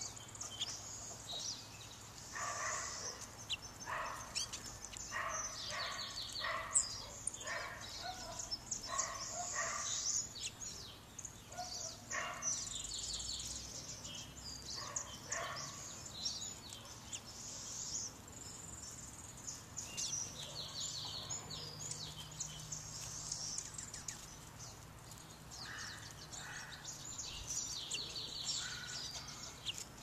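Small songbirds chirping and calling, with many short chirps in quick runs and a few rapid trills, busiest in the first half.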